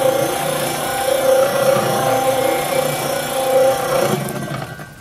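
Portable electric cement mixer running, its drum turning a heavy load of oobleck (cornstarch and water), a steady motor hum with a whine that swells and ebbs about once a second. The sound fades away near the end as the mixer winds down.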